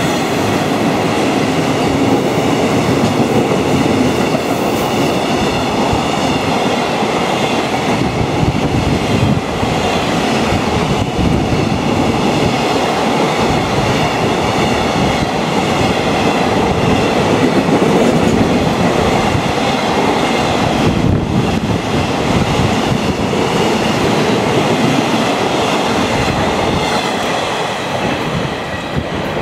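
Container freight train passing close at speed: a loud steady rumble of the flatcars' wheels on the rails with clickety-clack over the rail joints, a thin high whine running through it. The level eases a little near the end as the last wagons go by.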